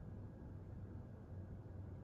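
Quiet room tone with a low steady hum, and a wall clock ticking faintly.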